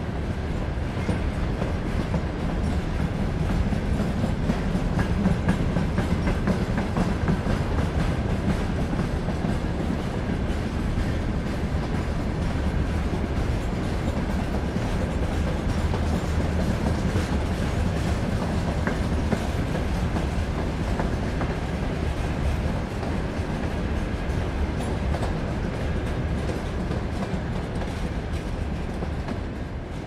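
Freight train rolling past, its wheels clattering over rail joints under a steady low rumble, with a faint steady high squeal running through it. Loudest a few seconds in, easing off slightly near the end.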